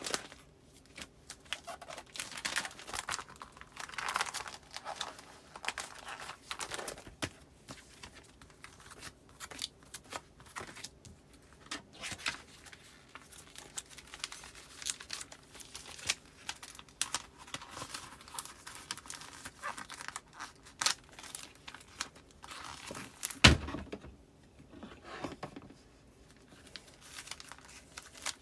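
Postcards being slid into the plastic pockets of a file, the sleeves crinkling and rustling with scattered light clicks, and one sharp knock a little after two-thirds of the way through.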